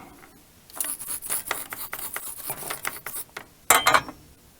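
Hands and small tools working thin stripped wires: rapid scratchy rubbing and scraping for a couple of seconds, then a few sharp clicks near the end.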